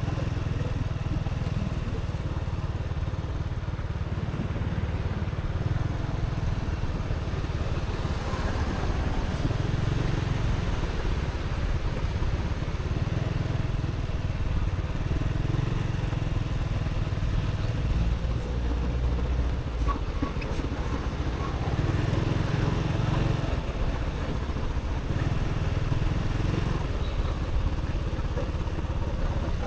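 A motorbike on the move: steady engine and road noise, with a low rumble that swells and fades throughout.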